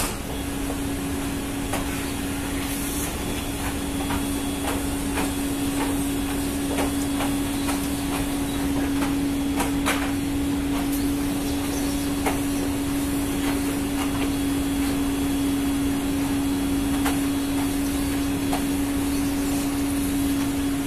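Ship's machinery running: a steady mechanical hum with one constant drone, and scattered light clicks and knocks over it.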